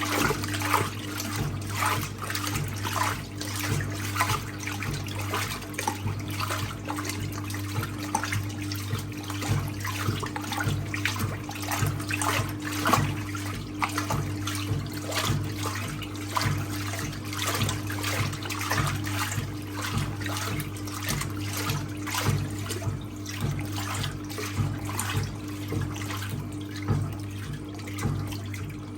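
1958 Hotpoint Empress washing machine in its wash cycle: the agitator churning towels in soapy water with rhythmic sloshing over the steady hum of the electric motor.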